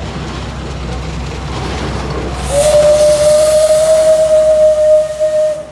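Steam whistle of the Alishan Forest Railway's Shay No. 25 steam locomotive blowing one long, steady blast of about three seconds with a hiss of steam, starting about halfway in over a low rumble and cutting off suddenly.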